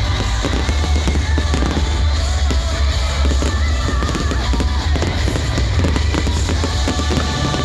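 Fireworks display going off continuously: dense crackling and popping of bursting shells over a deep rumble of booms, with music playing alongside.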